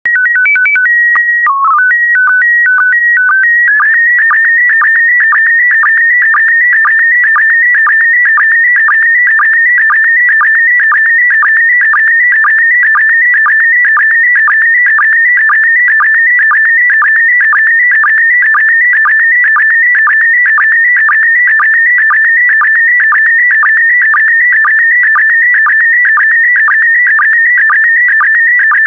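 Slow-scan TV (SSTV) audio signal in PD120 mode. It opens with a few seconds of short stepped steady tones, the mode header. From about four seconds in, a fast warbling tone carries the image line by line, broken by a regular sync pulse about twice a second.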